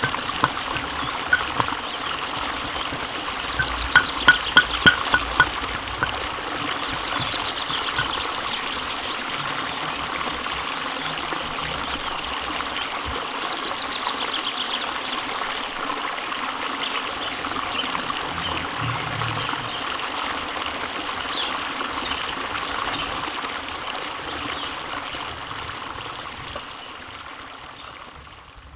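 Green chilli sambal sizzling in hot oil in a pan, a steady frying hiss, with a quick run of spatula clicks against the pan about four to five seconds in; the sizzle fades near the end.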